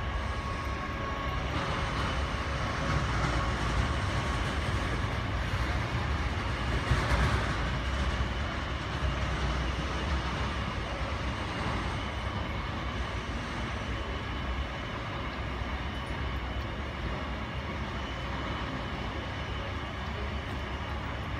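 Steady airport apron noise: a low rumble with faint steady whining tones over it, swelling briefly about seven seconds in.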